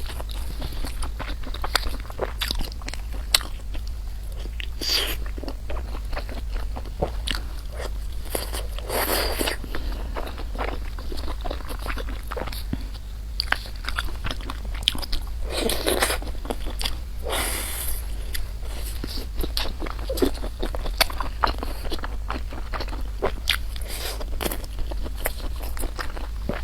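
Close-miked eating: a person chewing and biting noodles and rice, with dense irregular wet clicks and crunches and a few longer noisy stretches, over a steady low hum.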